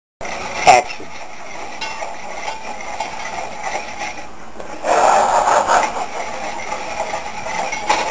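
A wire whisk stirring flour cooking in melted butter in a skillet, scraping and rubbing against the pan over a steady frying noise, louder for about a second around five seconds in.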